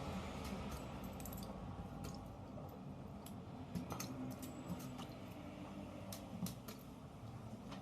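Scattered light clicks and taps of small metal parts being handled, about a dozen spread irregularly, over a low steady hum.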